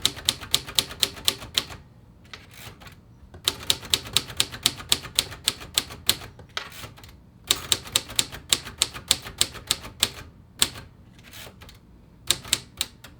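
1950s Royal Quiet De Luxe manual typewriter being typed in quick runs of keystrokes, about seven a second, three runs with short pauses between them, then a few scattered strikes near the end.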